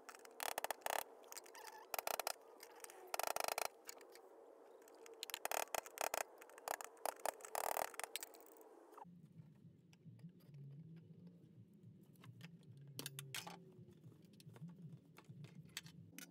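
A flat-head screwdriver is tapped with a hammer against the fuel pump module's metal lock ring, driving it counter-clockwise to release it. The sharp metallic taps come in quick clusters and stop about nine seconds in.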